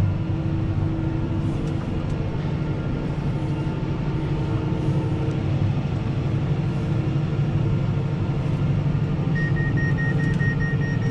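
Fendt 714 Vario tractor's six-cylinder engine running steadily under load, heard from inside the cab while pulling a working round baler. About nine seconds in, a rapid electronic beeping starts up in the cab.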